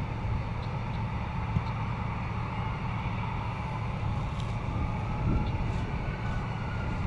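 Jet airliner landing close by: steady engine rumble with a faint whine that rises slightly in pitch in the second half.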